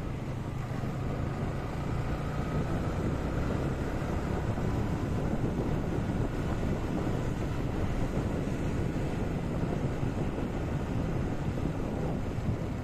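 Motorcycle riding along a wet road: a steady low engine hum under a constant rush of wind noise on the microphone.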